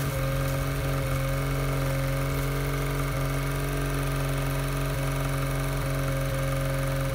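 Yamaha 9.9 outboard motor running steadily out of the water on a stand, fed cooling water by a garden hose on its lower unit.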